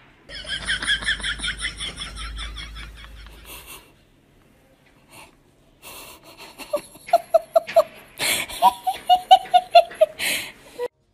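People laughing: a fast, high-pitched run of giggles for the first few seconds, then after a short pause a second run of evenly spaced "ha-ha" laughs, about five a second.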